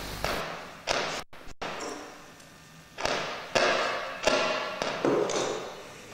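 Large loudspeaker with a mummified mouse wired onto its cone, giving out about half a dozen sudden harsh bursts of noise that each die away over about a second. The sound cuts out completely twice, briefly, about a second in.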